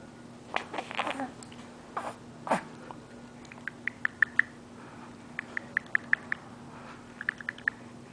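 A baby's brief squeaks and a short coo that falls in pitch, then three short runs of quick, sharp mouth clicks, about five to eight a second.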